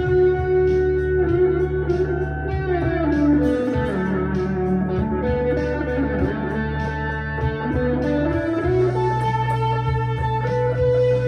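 Harley Benton CST-24T electric guitar with P90 pickups, played through a Harley Benton Plexicon overdrive pedal into a Blackstar HT-1R amp. It plays a blues-style lead of sustained single notes with string bends. Underneath runs a steady low bass that shifts about eight seconds in.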